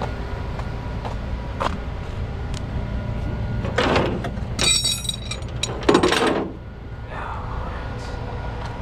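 Rollback tow truck's engine running steadily under clanks and a short metallic squeal of metal scraping, with the loudest knock about six seconds in, as a wrecked car is let down off the tilted bed.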